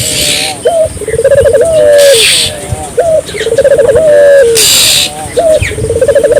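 Puter (Barbary dove) cooing over and over. Each phrase is a short rising note followed by a long rolled, trilling coo, about every second and a half. Short bursts of hiss fall between some of the coos.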